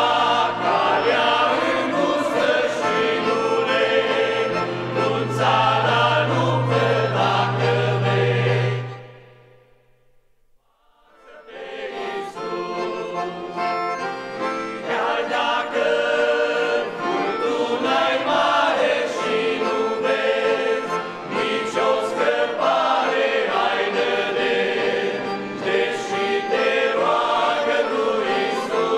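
Male vocal group singing a Romanian gospel song in harmony, accompanied by two piano accordions. About nine seconds in the music stops for a brief near-silent pause, then the singing and accordions start again.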